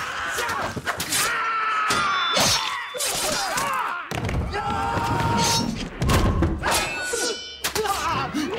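Film fight-scene soundtrack: a rapid string of thuds, blows and crashes, one after another, with brief ringing and pitched cries among them.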